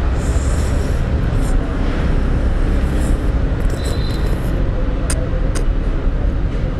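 Instant noodles being slurped up in several short sucking draws, over a steady low street rumble, with two sharp clicks near the end.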